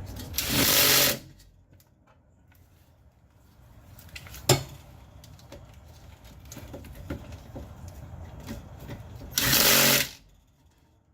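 Power tool, such as a cordless impact wrench or drill, run in two short bursts of under a second each, about a second in and again near the end. A single sharp metal click comes in between.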